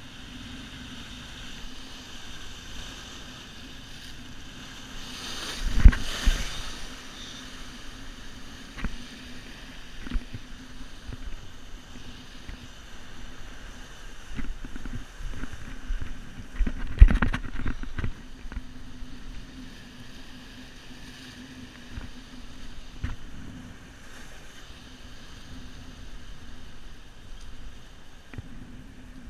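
Surf washing and breaking over coastal rocks, with wind on the microphone, steady throughout. Two loud crashes stand out about six and seventeen seconds in, with scattered lighter knocks between.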